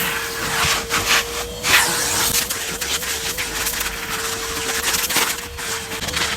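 Henry canister vacuum cleaner running, with a steady motor whine under a rushing hiss of air. The hiss rises and falls unevenly as the nozzle rubs and sucks over surfaces.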